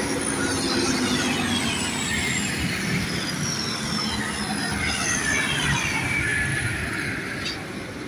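Tractors driving past on a tarmac road: a steady engine rumble with a high whine that falls in pitch as a tractor pulls away. The sound eases off near the end.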